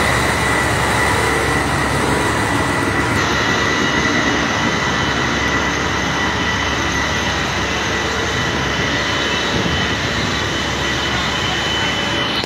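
Fire trucks' engines running their water pumps to feed the hose lines: a loud, steady mechanical drone with a thin high whine held over it.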